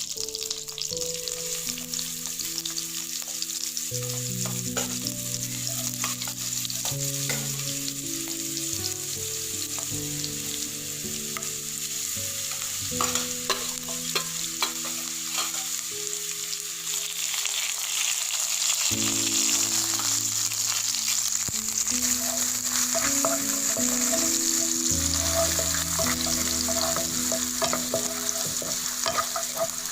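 Food sizzling in hot cooking oil in a pan while being stirred, with scattered clicks and scrapes from the spoon; the sizzle grows a little louder about two-thirds of the way through.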